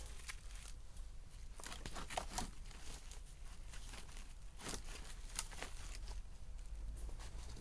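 Irregular crisp snaps and crackles with some rustling, from dry wood and kindling at a campfire.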